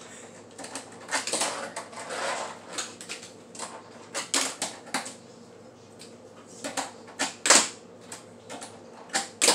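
Tech Deck fingerboard clacking against a plastic table top as it is popped and flicked by finger, in irregular sharp clicks with some scraping. The loudest clack comes about three quarters of the way through.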